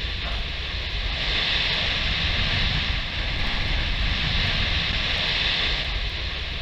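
Steady rushing rumble of the concrete cooling towers collapsing and their debris coming down. A hiss swells about a second in and eases near the end.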